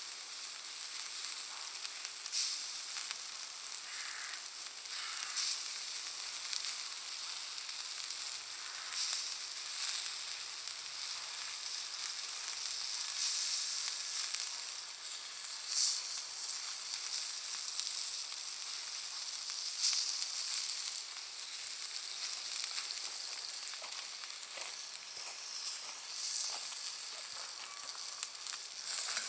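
Bonfire of Iwate cut charcoal and firewood crackling steadily with a thick stream of small, sharp pops, with a few louder snaps now and then.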